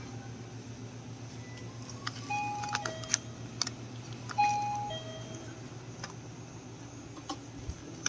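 Electronic two-note chime, a falling 'ding-dong', sounding twice about two seconds apart. It plays over a steady low hum with scattered light clicks and knocks.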